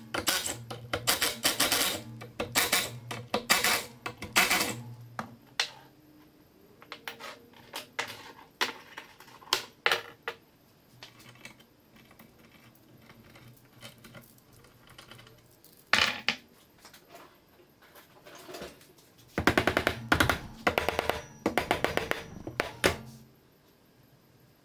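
Cordless impact wrench hammering in several short bursts, rattling the ring gear bolts off a limited-slip differential centre section.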